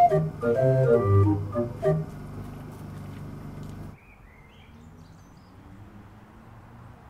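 Self-built 64-keyless mechanical pipe organ playing a tune of short pitched notes over a bass line. The music ends about two seconds in and fades out. After about four seconds only faint background noise remains.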